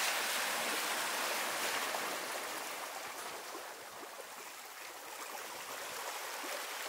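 Seawater washing and fizzing over a rocky shore: a steady rushing that eases a little partway through.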